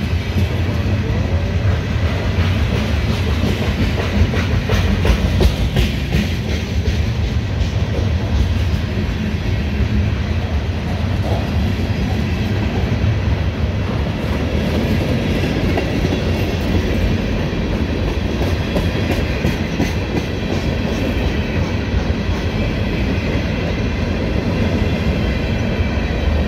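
A mixed freight train's cars (tank cars, flatcars and boxcars) rolling past close by: a steady low rumble of steel wheels on the rails, with clicking from the wheels throughout.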